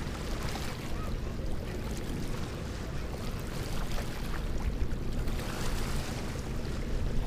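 Wind buffeting the microphone: a steady, low rumble.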